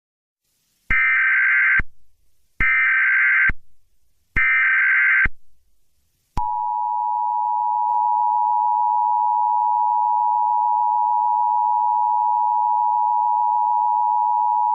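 Emergency Alert System header: three short bursts of warbling data tones, then the steady two-tone attention signal (853 and 960 Hz) held for about eight seconds. The sequence announces an emergency alert broadcast.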